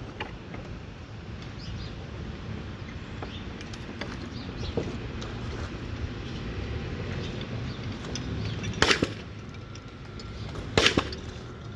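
Two sharp knocks on timber about two seconds apart, each a quick double strike, with faint lighter taps and a steady low rumble between them.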